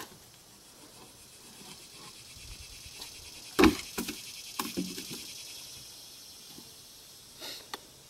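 Wooden beehive boxes being handled: one sharp knock a little over three and a half seconds in, then a few lighter knocks and scrapes, over a faint steady hiss.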